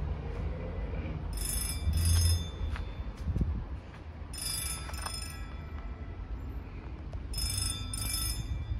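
Outdoor forecourt ambience: a steady low rumble of traffic and wind, broken three times by short high-pitched bursts about three seconds apart.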